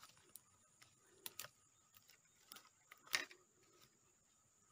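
Near silence with a few faint, scattered clicks and rustles, the loudest about three seconds in: handling noise as a freshly caught climbing perch is taken off the fishing line.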